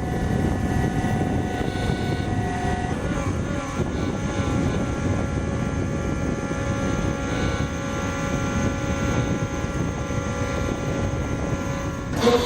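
Steady, loud mechanical drone carrying several steady tones, from an engine or machinery running continuously.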